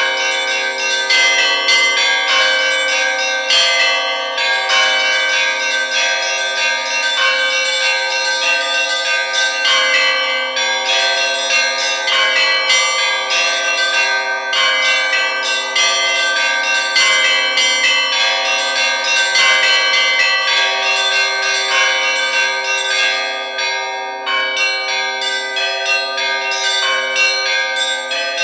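Russian church bells rung together in a continuous peal, rapid overlapping strikes over long lingering tones.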